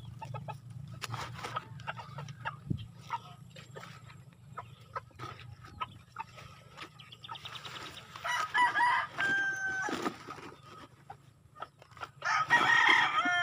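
Rooster crowing twice: a first crow with a held tone about two-thirds of the way in, and a louder one near the end that falls in pitch as it finishes. Light clicks and rustles from a plastic flower pot being handled.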